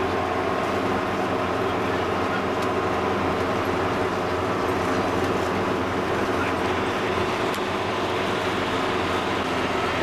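Steady engine drone and road noise of a vehicle heard from inside the cabin while driving at an even pace.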